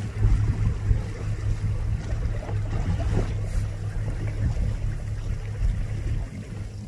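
Low, steady rumble of a boat's engine running, with wind noise on the microphone.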